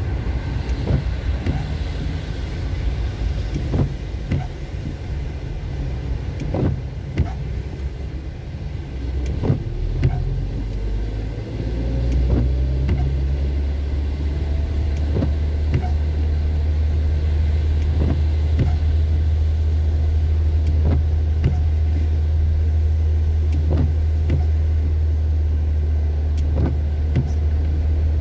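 Car interior road noise while driving on a wet road in rain: a low engine and tyre rumble with scattered sharp ticks. Around a third of the way in, a faint rising whine comes as the car speeds up, and the low rumble then turns louder and steady.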